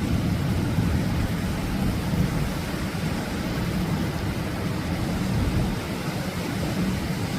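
Atlantic Ocean waves breaking on the shore: a steady low rumble of surf.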